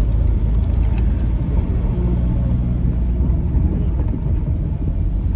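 Steady low rumble of a 2012 Kia Carnival minivan driving along, engine and road noise heard from inside the cabin.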